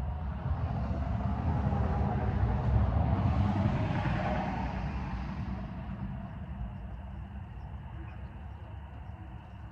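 A vehicle drives past, growing louder to a peak about three to four seconds in, then fading away.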